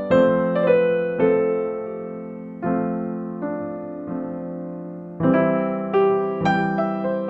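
Background music: slow, gentle piano playing soft chords and notes that ring and fade, with a louder run of notes starting about five seconds in.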